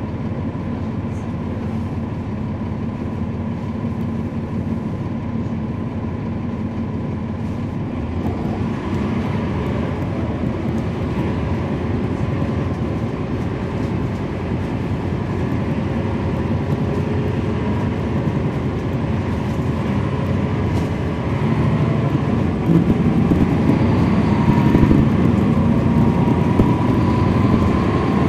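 Cummins ISL9 inline-six diesel engine of a 2012 NABI 40-SFW transit bus, heard from inside the bus, running steadily. It grows louder through the second half, and a whine rises in pitch near the end.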